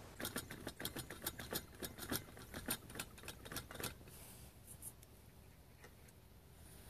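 Light metallic clicks and taps from a small camping stove's folding steel pot-support arms being handled, in a quick uneven run for about four seconds, then a few faint taps.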